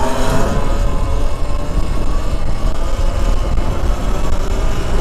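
Wind rumbling and buffeting over the microphone while riding, loud and steady, with a faint steady hum over it.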